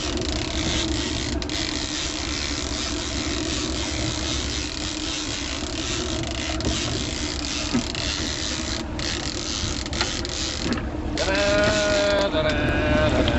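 A fishing reel being cranked during a fight with a hooked fish, its mechanism clicking and grinding, over a steady rushing noise. About eleven seconds in, a wavering pitched tone comes in.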